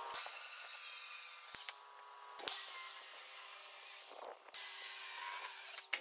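Handheld power saw, apparently a circular saw, cutting through a cedar beam in three stretches with short breaks between them: a loud hissing cut with a high whine that wavers in pitch.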